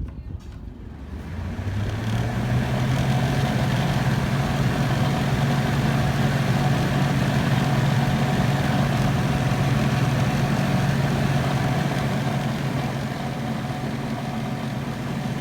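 Holmes Blizzard desk fan switched on, its motor spinning up over about two seconds, then running steadily with a low hum and a rush of air.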